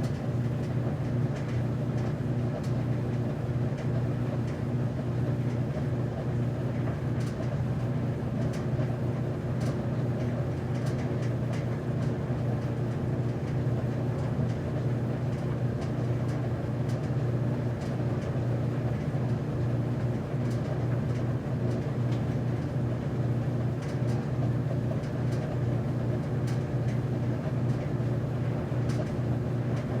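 Commercial laundromat laundry machine running steadily: a steady motor hum with the drum turning, with a few faint ticks scattered through it.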